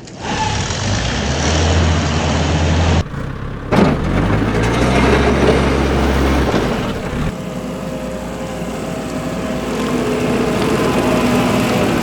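Heavy truck or construction-machine engine sound running steadily with a low rumble. It cuts off abruptly about three seconds in, then starts again as a different engine sound that shifts once more around the middle.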